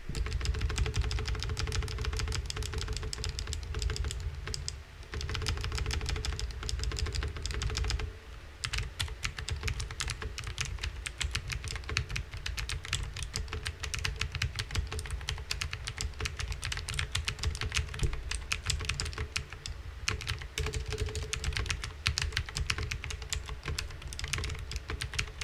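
Mechanical keyboard with lubed blue clicky switches being typed on fast, a dense run of sharp key clicks with short breaks about five and eight seconds in.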